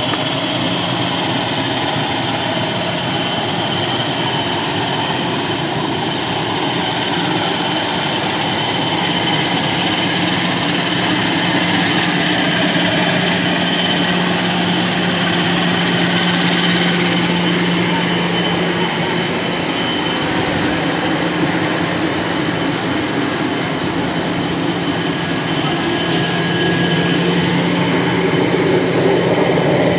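Aircraft turbine engine running steadily on the apron: a constant low hum with a thin high whine over it, swelling slightly a little under halfway through and again near the end.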